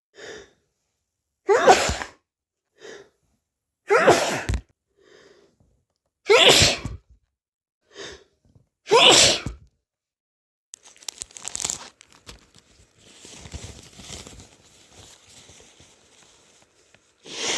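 A person sneezing four times, about two and a half seconds apart, each sneeze with a short sharp breath in about a second before it. The sneezes are followed by several seconds of softer rustling and breathy noise.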